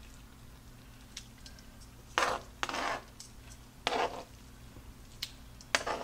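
Metal kitchen tongs scraping and clacking against a plastic cutting board as shredded roast beef is pushed off it into a slow cooker. A few separate scrapes, the loudest pair about two seconds in and another near the end, over a faint steady hum.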